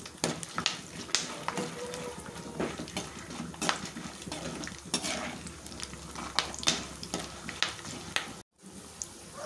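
Peanuts, chana dal, urad dal and mustard seeds frying in hot oil in a non-stick kadai for a tempering: a steady sizzle with many sharp crackles and clicks, and a slotted metal spatula scraping and knocking against the pan as it stirs. The sound cuts out for a moment near the end.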